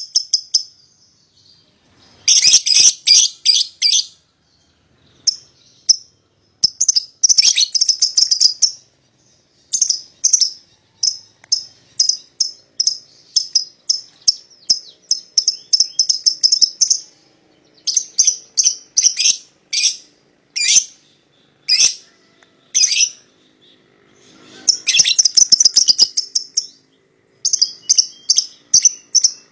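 A pair of young lovebirds calling: runs of rapid, shrill chatter and single sharp chirps that break off and start again every second or few seconds.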